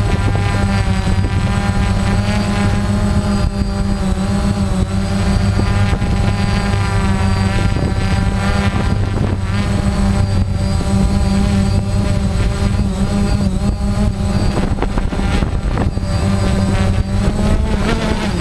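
Quadcopter drone's electric motors and propellers whining, picked up close by the drone's own onboard camera. The whine rises and falls in pitch as the throttle changes.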